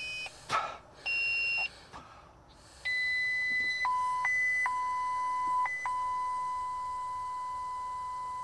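Breath-alcohol ignition interlock handset beeping while a breath sample is given. A short beep and a brief puff of breath come first, then another short beep. From about three seconds in a continuous tone sounds while the user blows steadily; it steps between a higher and a lower pitch, then holds the lower one.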